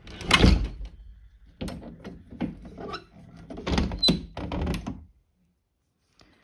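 A wooden window frame being moved by hand: a string of thunks and knocks, the loudest about half a second in, with a short squeak about four seconds in.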